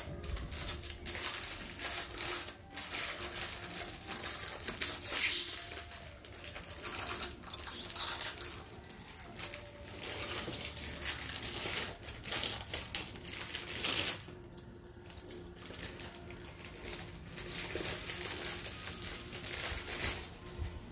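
Glass bangles clinking and jingling against one another as a bunch is handled and turned, many small rapid clicks, loudest about five seconds in.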